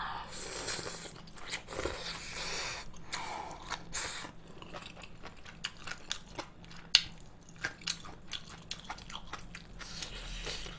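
A person slurping up spicy malatang noodles in the first few seconds, then chewing them with a long run of small wet mouth clicks.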